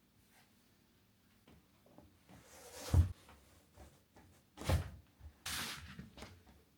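Household handling sounds: a rising swish that ends in a sharp thump, a second thump about two seconds later, then a short rush of noise.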